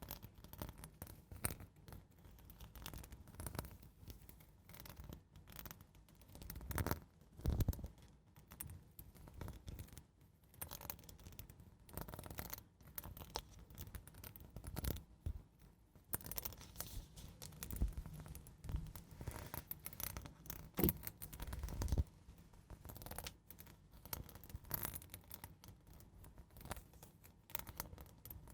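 Close-miked ASMR scratching: slow, soft scratching and scraping strokes at an irregular pace, with a few louder strokes about seven seconds in and again around twenty-one seconds.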